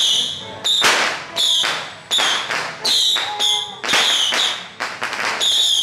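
A ritual whip being cracked hard and repeatedly, about ten sharp cracks at roughly two a second, each leaving a short high ringing tail.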